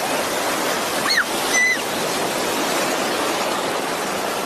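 Shallow sea surf washing in, a steady rush of breaking waves. Two short high-pitched squeals cut through it at about a second in and again half a second later.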